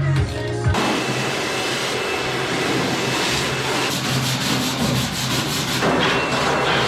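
Abrasive tool scrubbing rusted steel: a steady, rough scouring noise, part of stripping the old lawn cart down for new paint. Its sound shifts slightly about six seconds in.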